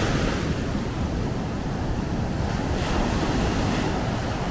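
Heavy storm surf breaking and washing in as a steady rush of whitewater, with wind buffeting the microphone as a low rumble underneath.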